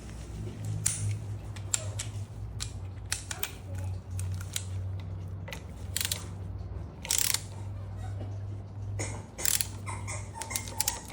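Ratcheting torque wrench tightening the front brake caliper bolts on a Honda Shadow VT600: a run of irregular metallic clicks and scrapes, with a few louder ones about six, seven and nine and a half seconds in. A steady low hum runs underneath.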